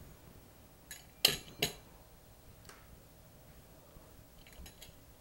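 Metal pizza-cutter wheel clinking as it is set down on a work mat: a few sharp clicks about a second in, the loudest two close together, then faint ticks near the end.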